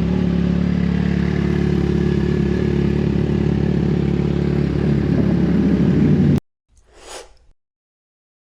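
2009 Yamaha FZ6R's fuel-injected inline-four running steadily through a Two Brothers slip-on exhaust, a little louder near the end, then cutting off abruptly about six seconds in. A brief faint rushing sound follows about a second later.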